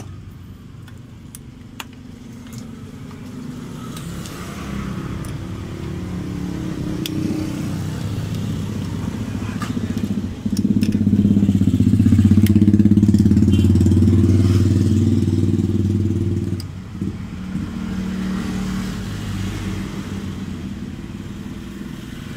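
Honda Vario scooter's single-cylinder engine running steadily, noticeably louder for about six seconds around the middle, with a few light clicks.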